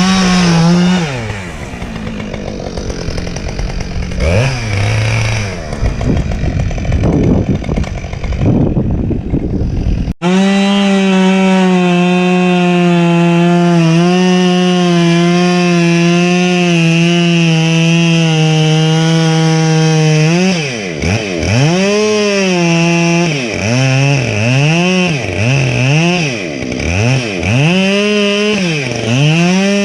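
Two-stroke chainsaw cutting wood, its engine note wavering under load. After an abrupt break about ten seconds in, it runs at a steady high-revving pitch. In the last third the throttle is repeatedly let off and opened again, so the pitch drops and climbs back several times.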